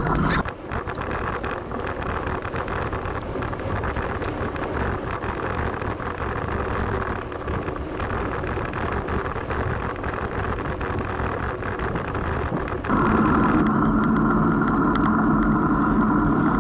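Wind rumble on the microphone and tyre noise from a bicycle being ridden on a gravel path. About thirteen seconds in it cuts abruptly to a louder passage with a steady hum of several held tones.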